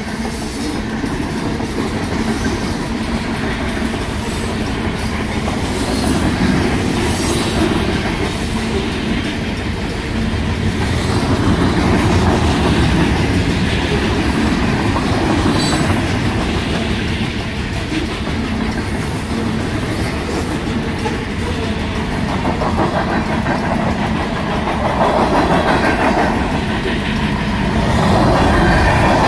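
Freight cars of a long mixed freight train rolling past, a steady rumble with the clickety-clack of wheels over the rail joints. The grade crossing's electronic and mechanical bells keep ringing under the train noise.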